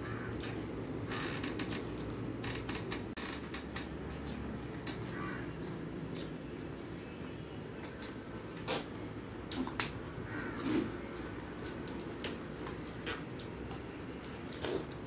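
Eating rice by hand from a steel plate: fingers squishing and mixing rice against the metal, with chewing and a few sharp clicks scattered through, over a steady low background hum.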